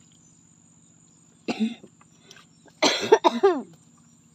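A person coughing: one cough about a second and a half in, then a harder run of three or four coughs about three seconds in, the last ones trailing off and falling in pitch.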